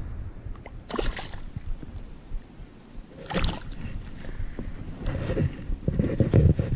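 A stick splashing in shallow, weedy water a few times, with short sloshing bursts about a second in and again a little past the middle, over a low rumble on the microphone.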